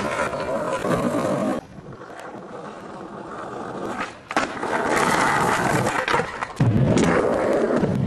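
Skateboard wheels rolling and rumbling, with several sharp clacks of the board, most of them in the second half.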